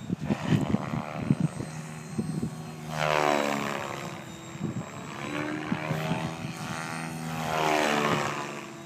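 Mikado Logo 600 electric RC helicopter flying 3D aerobatics overhead: the whine of its rotor and drivetrain sweeps up and down in pitch as it flips and turns. It is choppy in the first couple of seconds and swells loudest about three seconds in and again near the end.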